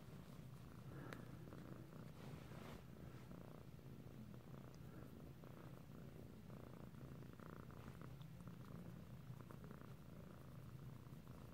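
Cat purring faintly and steadily while being scratched on the head and chin, with a few soft rustles in the first three seconds.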